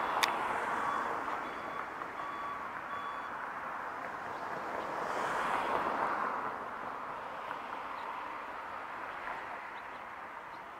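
A vehicle's back-up alarm beeping about once a second, stopping about three seconds in, over the rushing noise of passing traffic that swells twice and fades.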